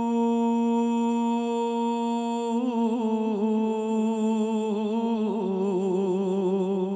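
A male singer's unaccompanied voice holding one long wordless note, then wavering into ornamented vibrato about two and a half seconds in and stepping down to a slightly lower held note near the end.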